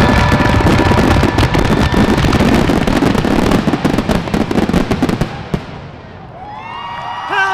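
Fireworks finale: a dense barrage of crackling shells and bangs that thins out and dies away about five seconds in. Near the end a crowd starts cheering and whistling.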